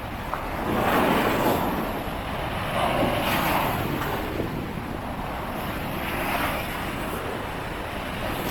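Wind buffeting the microphone, with rushing swells of noise every two to three seconds.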